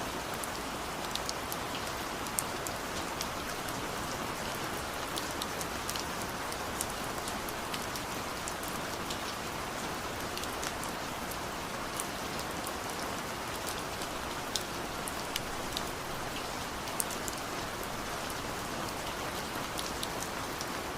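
Steady rain: an even hiss of falling rain with scattered sharp ticks of individual drops landing close by.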